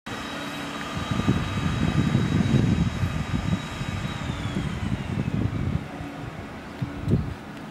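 Chairlift ride: a steady mechanical whine with several held tones, the highest sliding down in pitch about four seconds in, under gusty rumbling from wind buffeting the microphone.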